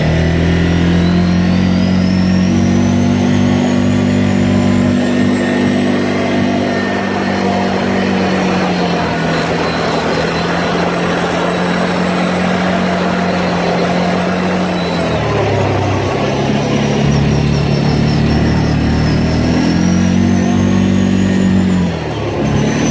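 ATV engine running under way. Its pitch climbs in the first seconds, holds steady, drops about fifteen seconds in, then rises again and eases off near the end. A thin high whine rises and falls along with it.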